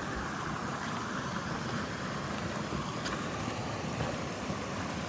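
Steady rushing of a nearby creek, an even wash of running water with a couple of faint ticks.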